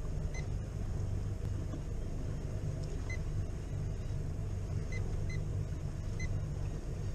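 Boat engine running steadily with a low rumble, with five short electronic beeps from the helm chartplotter/fish finder as its touchscreen is pressed.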